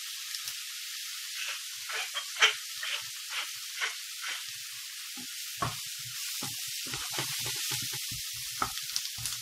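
Sliced mushrooms and onion frying in olive oil in a non-stick pan with a steady sizzle. A wooden spoon scrapes and knocks against the pan as they are stirred.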